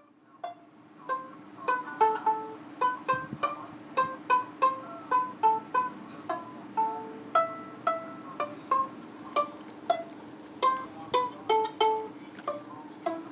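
Background music: a melody of short plucked-string notes, two or three a second, over a faint steady low tone.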